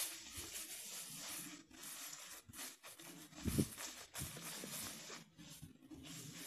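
Dry fallen leaves rustling and scuffing in uneven bursts, with one louder low thump about three and a half seconds in.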